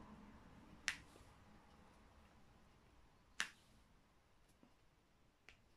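Diamond painting drill pen tapping resin drills onto the adhesive canvas: two sharp clicks about two and a half seconds apart, then a faint one near the end, in near silence.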